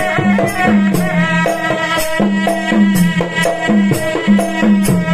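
Serunai, a Malay double-reed oboe, played: a continuous, bright reedy melody of quick, ornamented notes that change several times a second.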